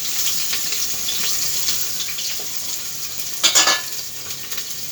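Chopped onions sizzling as they fry in hot oil in a pressure cooker, stirred with a spoon that clicks and scrapes against the pot, with one louder scrape about three and a half seconds in.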